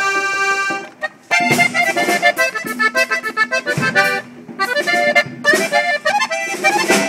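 Accordion playing quick runs of notes in norteño style, breaking off briefly about a second in before carrying on.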